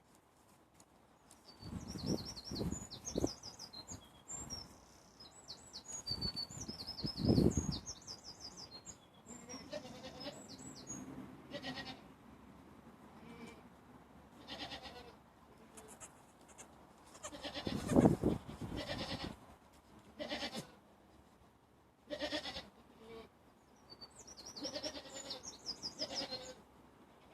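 Young goat kids bleating in short, repeated calls, with small birds chirping in the first few seconds and again near the end. A few louder, deeper sounds stand out, the loudest about two-thirds of the way through.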